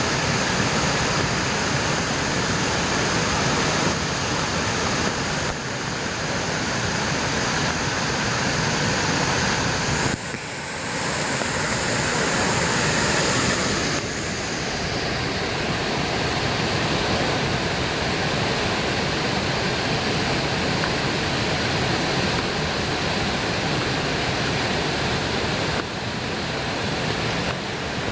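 Steady rush of a waterfall spilling in many thin streams over a wide rock face, with a short dip in level about ten seconds in.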